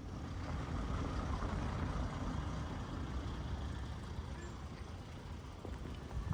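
A large road vehicle's engine running close by, a steady low sound that eases a little after the middle.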